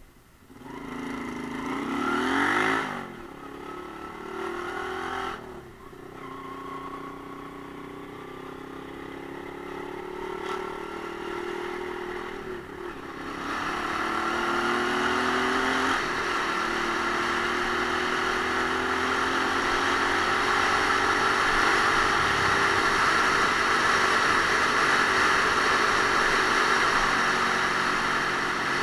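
Romet Ogar Caffe 125's single-cylinder engine pulling away and accelerating. The revs climb and drop three times as it shifts up, about 3, 5 and 13 seconds in, then it settles into a steady, louder run.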